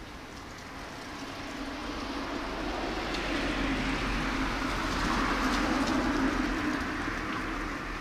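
A passing vehicle: its noise swells to a peak about five or six seconds in and then fades, with a steady low hum under it.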